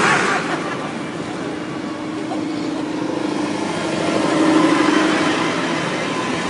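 Tractor engines running as tractors drive off on a road run, one swelling louder about four seconds in and then easing off.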